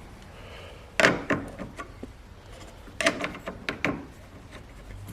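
A handful of sharp knocks and clacks, two about a second in and a quick cluster around three to four seconds in: the headlight unit being handled and seated in its opening in an Audi A4's front end.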